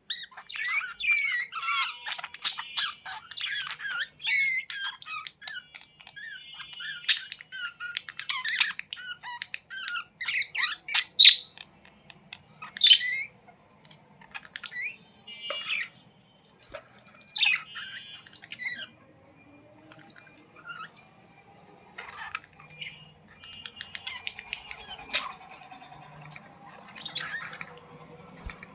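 Budgerigars chattering and squawking, dense for the first dozen seconds, then in sparser bursts.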